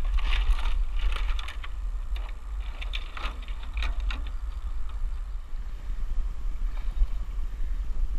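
Steady low rumble of wind buffeting a head-mounted camera's microphone. During the first four seconds, a run of sharp crackles and snaps from tree branches and twigs being handled and brushed against.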